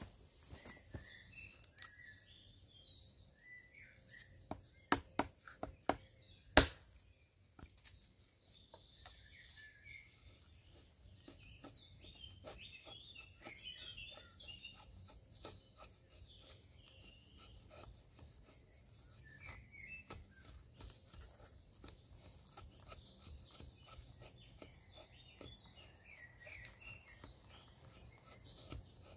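Dry wood struck a few times by a Tetrao Panus hatchet, sharp knocks about five to seven seconds in, the last one the loudest, then faint repeated scraping as the blade shaves thin curls off an old log. An insect chirrs at one steady high note throughout.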